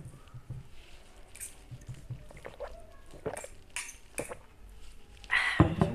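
Forks clicking and scraping against plates as noodles are stirred, a light click every half second or so, with one louder knock and rustle near the end.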